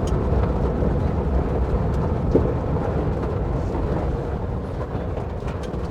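A 1958 Volkswagen Bus's air-cooled flat-four engine pulling steadily in a low rumble as the bus bounces over a rough dirt trail, with a few light knocks and rattles.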